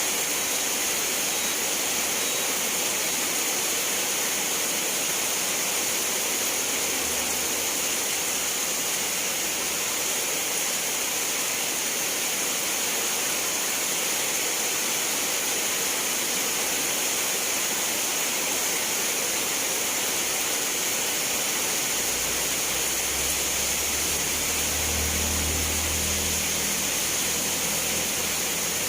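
Steady rain falling, a continuous even hiss. A soft low rumble rises under it a little over two-thirds of the way through.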